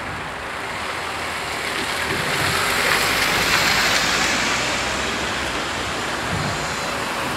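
Two cars driving past close by, one after the other: a rush of tyre and engine noise that swells to its loudest about three seconds in as the first goes by, then rises again slightly near the end as the second, a Dacia, passes.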